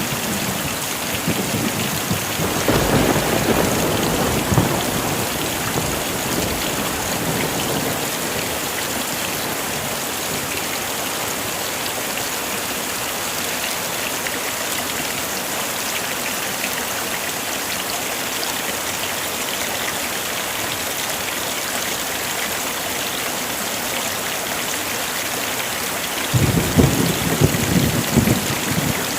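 Heavy rain falling in a steady hiss, with thunder rumbling twice: a few seconds in and again near the end.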